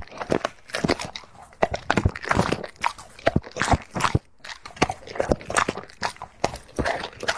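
A dog chewing and crunching food, with rapid irregular crunches several times a second and a brief pause about four seconds in.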